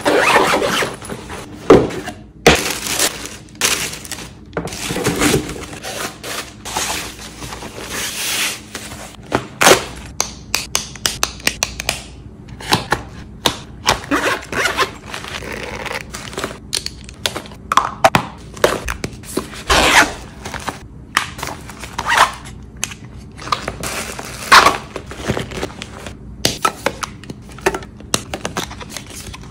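Close-up packing sounds: hands handling fabric packing cubes and toiletry bags, with irregular sharp knocks, clicks and scrapes as small plastic bottles and jars are picked up and set down, between softer rustling of the fabric.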